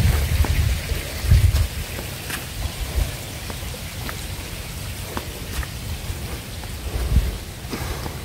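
Wind buffeting the microphone in gusts over a steady hiss, with irregular soft footsteps on a rock path.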